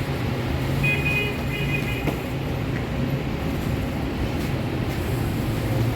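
Steady low mechanical hum with a noisy rumble. A few short high tones sound about a second in.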